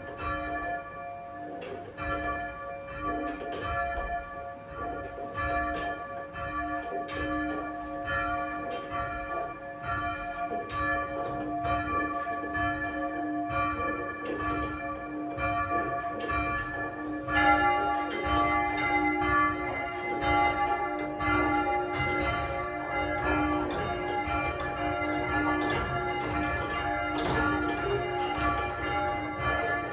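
A ring of church bells, the heaviest about half a ton and graded down to the small treble, rung full-circle by a band of ringers in a steady repeating succession of strokes. A little past halfway the ringing gets louder and higher bell tones come in more strongly.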